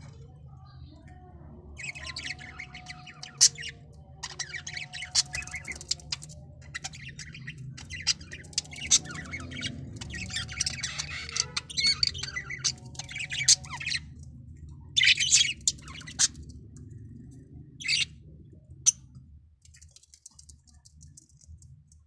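Budgerigar chicks giving raspy begging chirps in rapid runs while being fed, with a few louder squawks in the second half. The calling stops a few seconds before the end.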